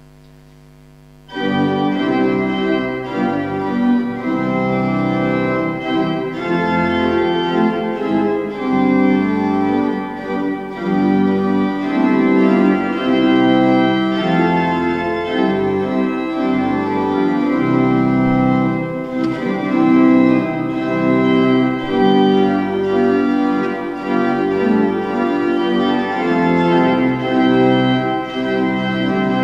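Organ music begins suddenly about a second and a half in, with full sustained chords played at a steady loud level. Before it there is a faint electrical hum.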